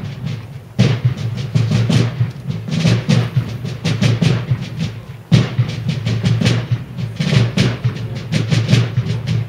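Drums playing a rapid rhythmic beat: many sharp strokes over a deep, booming low drum, with brief breaks about a second in and about five seconds in.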